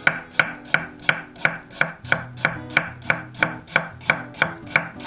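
Kitchen knife thinly slicing fresh ginger root on a wooden cutting board: a steady rhythm of about three even chops a second, each stroke knocking the blade on the board.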